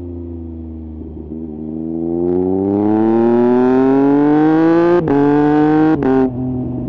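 Triumph Speed Triple 1050 RS inline-three engine through a Mivv exhaust with the dB killer removed, pulling hard with a rising note, with two quickshifter upshifts about a second apart, each a brief cut and drop in pitch. Near the end the throttle eases and the note settles lower and quieter.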